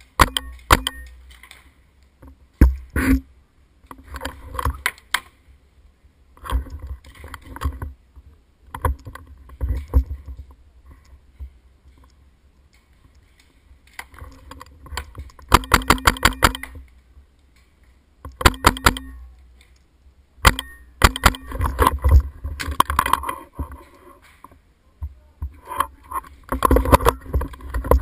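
Paintball markers firing in rapid strings of sharp shots, several volleys a few seconds apart, with a long fast string just past the middle.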